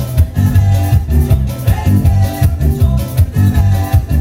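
Latin dance music played loud over a DJ sound system, with a steady, heavy bass beat.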